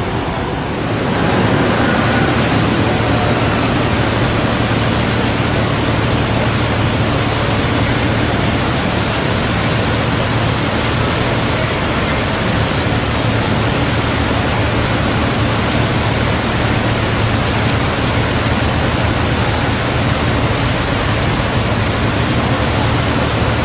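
Large fountain jets splashing into their basins: a loud, steady rush of falling water, with a low hum underneath. It swells about a second in and then holds.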